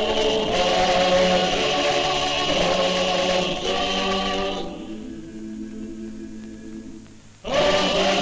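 Abkhazian folk choir singing in several parts with long held notes. About halfway through, the upper voices drop away and a quieter, lower held part carries on. Near the end the full choir comes back in loudly.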